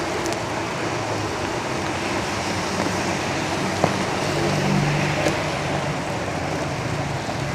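Steady rain on a tin roof, with a road vehicle's engine passing outside, loudest about halfway through. A few sharp taps stand out from the rain.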